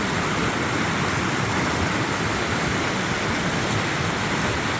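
Rushing mountain creek swollen with snowmelt, a steady, even roar of water.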